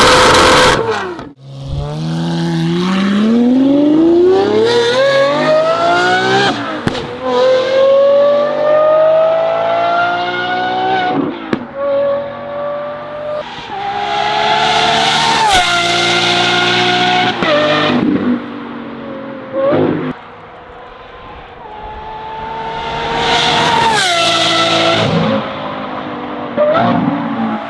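Lamborghini Aventador Ultimae's naturally aspirated V12 through a Valvetronic Designs F1 race exhaust. It is held at high revs for a moment, then accelerates hard through a run of gears, each climb in pitch ending in a sharp drop at the upshift. It fades briefly, then comes back loud and falls away.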